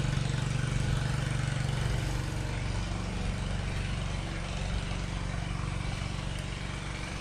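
A motor running steadily with a low, even hum, louder for the first two and a half seconds and then a little quieter.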